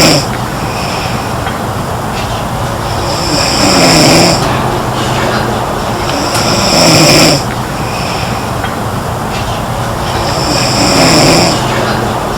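A girl snoring in her sleep: three loud snores, each lasting about a second and coming every three to four seconds.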